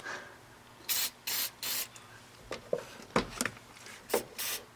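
Aerosol can of silicone spray sprayed in short hissing bursts: three about a second in, and two more near the end, with a few light knocks in between.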